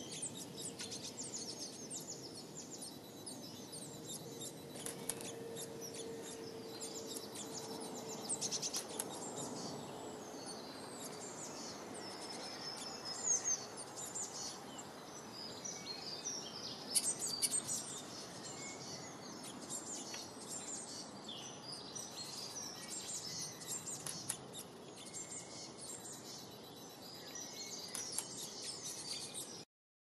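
Small garden songbirds chirping and calling in quick, high notes over a steady outdoor background hiss.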